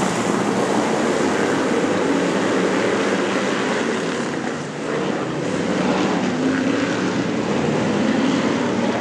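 A pack of supermodified speedway cars' V8 engines running together on the pace laps before a race start, a loud steady drone that dips briefly a little before halfway through.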